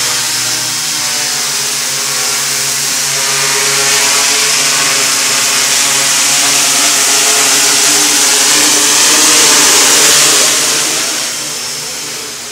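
Quadcopter's four KDA 20-28M brushless motors spinning Gaui 10-inch propellers, whining loudly close by as it hovers low, with a rushing hiss of air and a pitch that wavers slightly with throttle. The sound fades near the end as the quad moves away.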